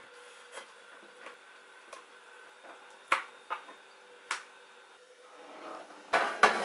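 Scattered light knocks and clicks of kitchen things being handled, over a faint steady hum. Near the end a rustling noise builds and there are two louder clatters.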